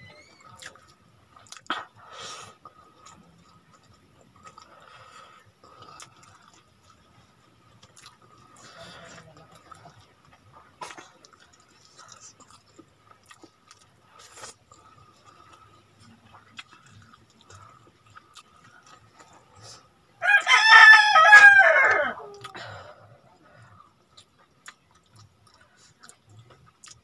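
A rooster crowing once, about three-quarters of the way through: one loud crow of about two seconds that drops in pitch at the end. Around it, faint clicks and squelches of eating rice by hand.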